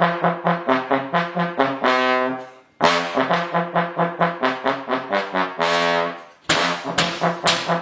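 Trombone playing a quick run of short notes, about five a second, its slide worked by a second player. Each phrase ends on a held note that fades out; the phrase comes twice and starts a third time near the end.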